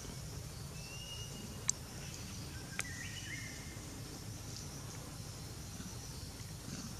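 Forest roadside ambience: a steady low rumble under a steady high insect hiss. Short high whistled bird calls come about a second in and again about three seconds in, with two faint clicks.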